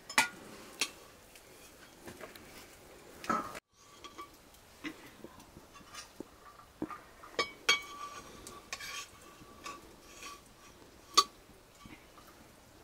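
Scattered clinks and scrapes of a metal ladle against a steel cooking pot and steel plates as cooked rice is served out, with a few brief ringing clinks.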